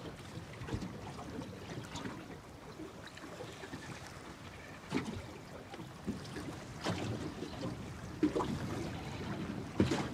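Water lapping and splashing against the hull of a drifting boat, with a few sharp knocks scattered through it, the loudest near the end.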